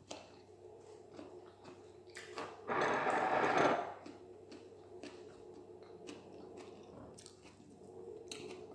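Quiet chewing and fingers working food on a plate, broken about three seconds in by one loud burst from the eater's mouth and throat, about a second long and stifled behind her hand.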